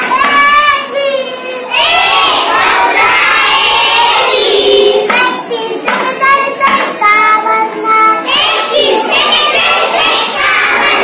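A young girl chanting a counting table aloud in Marathi in a steady sing-song rhythm, reciting the numbers one after another.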